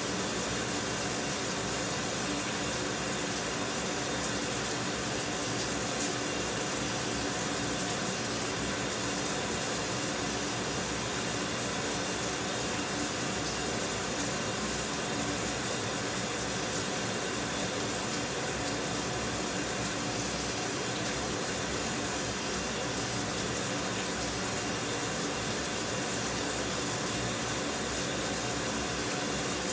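Shower running: a steady, unbroken spray of water.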